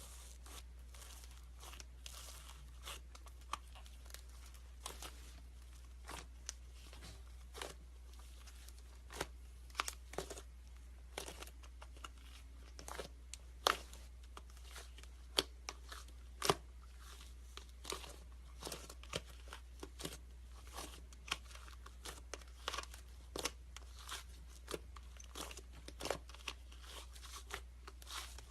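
Slime being squeezed and worked by hand, giving irregular crunchy crackles and sharp pops, sometimes several a second, over a steady low hum.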